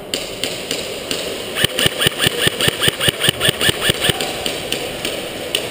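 Airsoft electric gun, a Cybergun Thompson M1A1, firing a fast string of about sixteen shots, roughly seven a second, starting about a second and a half in and lasting a couple of seconds.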